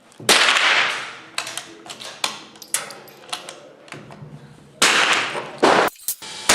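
.22 LR rifle shots in an indoor range: one loud shot about a third of a second in, with a long echoing tail, then a few light clicks, and two more shots close together near the end.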